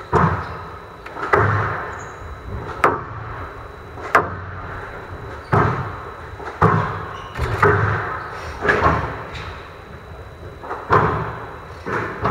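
Squash rally on a glass court: a sharp crack of the ball hit about every second and a half, each echoing briefly in the hall.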